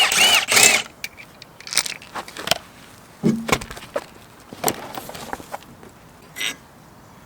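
Floor jack being pumped, its strokes squeaking loudly for about the first second; the jack is worn and in need of servicing. Then scattered short clicks and knocks of tools and parts being handled.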